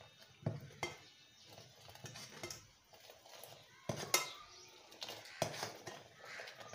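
Perforated metal ladle clinking and scraping against an aluminium pot as milk tea is stirred, scooped up and poured back, in irregular knocks with a few sharper ones about four seconds in.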